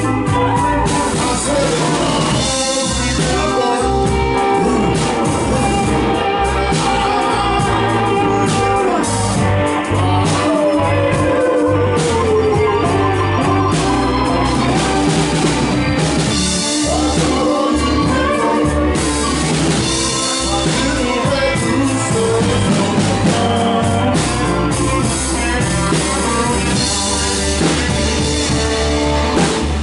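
Live blues band playing a slow blues, with an organ-voiced keyboard to the fore over electric bass and drums.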